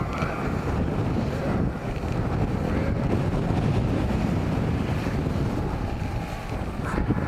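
Wind buffeting the microphone over the low, steady rumble of an off-road vehicle's engine.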